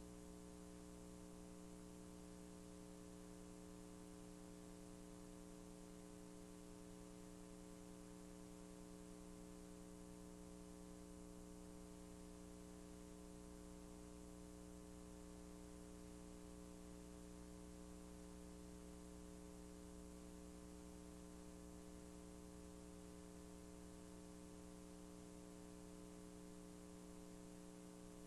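Near silence: a faint, steady electrical hum with hiss, with no other sound.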